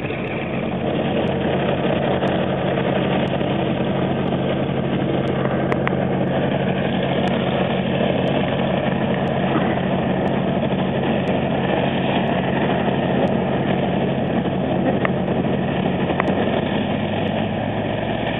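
Twin radial engines of a 1940 Douglas DC-3A running steadily at low, taxi-level power, with the engine pitch dropping slightly near the end.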